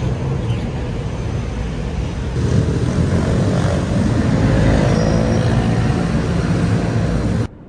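Steady rumble of city road traffic, a little louder around the middle, that cuts off abruptly just before the end.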